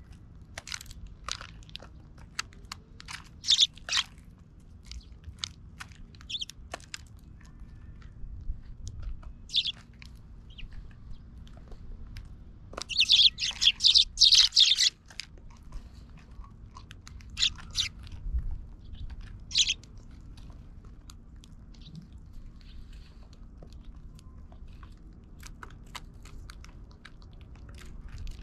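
Eurasian tree sparrows pecking and cracking seed in a wooden feeder tray close to the microphone: a scatter of sharp little pecks and crunches, with a few short chirps. About halfway through comes a loud burst of rapid chirping lasting a couple of seconds.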